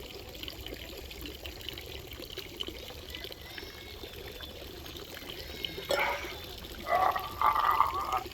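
Public drinking fountain's water running steadily from the spout into the basin. Near the end come a few short, louder vocal sounds from the drinker.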